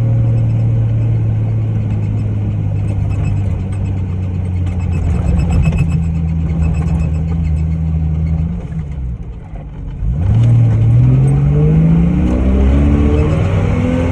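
Off-road vehicle's engine running steadily under way, then easing off briefly. It then accelerates hard, its pitch climbing, dropping at a gear change and climbing again.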